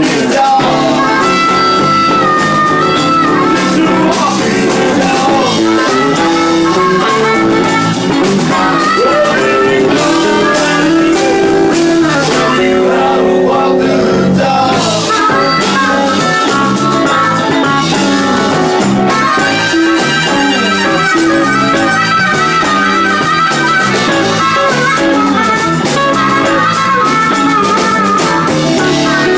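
Live blues-rock band: a harmonica cupped against a vocal microphone plays lead over electric guitars, bass and drums.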